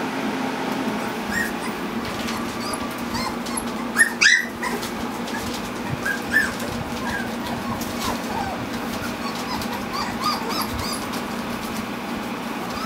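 Four-week-old standard poodle puppies whimpering and yipping: many short high-pitched squeaks, with one louder yelp about four seconds in.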